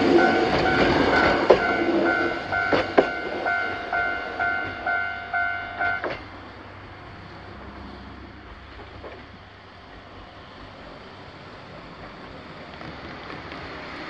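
Japanese level-crossing warning bell dinging about twice a second while a Choshi Electric Railway train rolls past, its wheels clacking over the rail joints; bell and train noise stop about six seconds in. A car can be heard approaching near the end.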